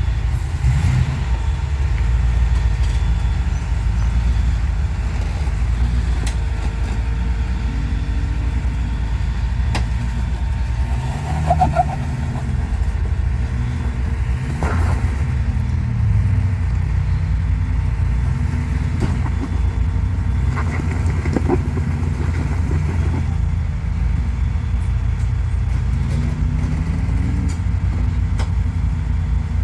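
Engine of a lifted Ford Explorer running at low revs while crawling over rocks, the revs rising and falling with the throttle. A few short knocks and clunks from the rocks and running gear are heard.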